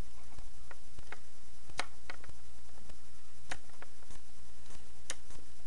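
Plastic parts of a Transformers Robots in Disguise Warrior Class Bumblebee action figure clicking and tapping as it is transformed by hand, with tabs pushed into place: about ten scattered sharp clicks over a steady low hum.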